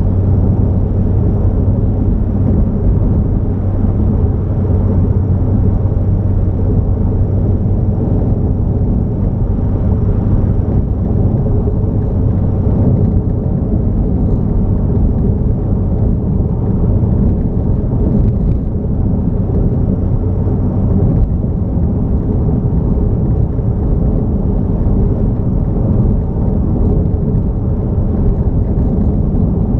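Car travelling on a highway: a steady low rumble of engine and road noise, with a low hum that fades about two-thirds of the way through.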